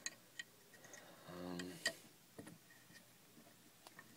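A few light, scattered metal clicks and taps from a lock and small tools being handled at a bench vise, with a brief low hum from a person about a second and a half in.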